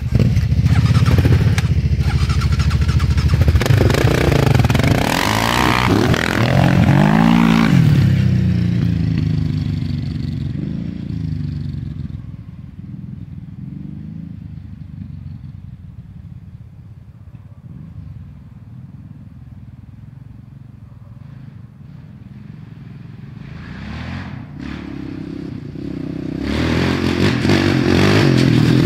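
Quad bike (ATV) engine revving hard, with the pitch rising and falling, as it pulls away; it fades into the distance for about half the time, then grows loud again as the quad comes back.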